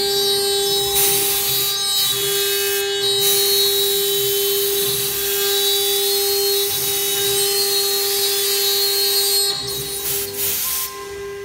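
Spindle of an STM1325 CNC router running with a steady whine while its bit cuts MDF, under a rushing cutting noise. The cutting noise thins briefly near the end.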